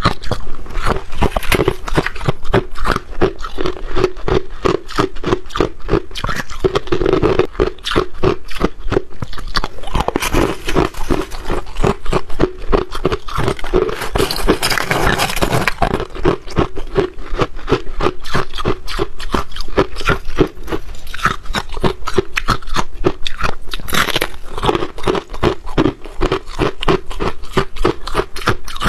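Close-miked biting and chewing of freezer frost: rapid crisp crunches, several a second, as packed frost ice is bitten off and crushed. A longer scraping crunch comes around the middle, about fourteen to sixteen seconds in.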